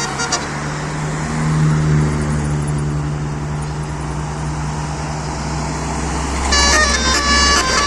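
Basuri telolet horn on a tour bus playing its stepped multi-note tune, cutting off just after the start. The bus engine runs with a steady low hum through the middle, and near the end the horn tune starts up again.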